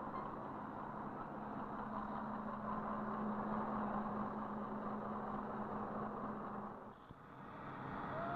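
Engine running steadily, with a steady hum under it; it drops away briefly near the end and then comes back up.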